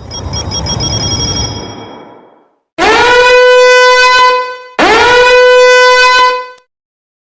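A sound effect: a noisy rumble of about two seconds with a few high ringing tones, fading out. Then two long horn-like blasts, each swooping up in pitch at the start and then held steady before cutting off.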